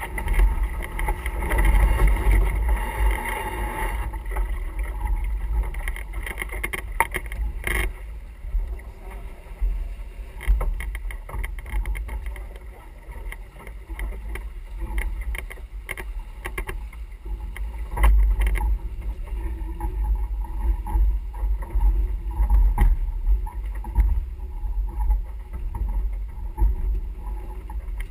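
Sailing yacht underway: wind rumbling on the microphone and water rushing past the hull, with scattered knocks and clicks from deck gear.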